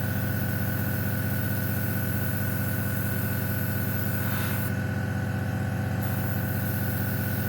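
Airbrush compressor running with a steady hum, while the airbrush hisses as it sprays paint. The hiss stops about two-thirds of the way through and starts again about a second later.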